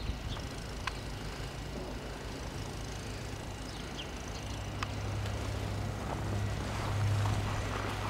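A vehicle engine running with a steady low drone that grows louder over the second half.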